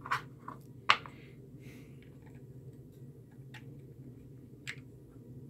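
Clear acrylic enclosure panels clicking and tapping against each other as they are handled and pressed into place: a few scattered light clicks, the sharpest about a second in.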